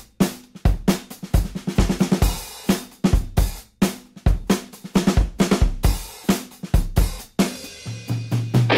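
Background music: a drum kit playing a busy beat of kick, snare and cymbal hits, with a low held note coming in near the end.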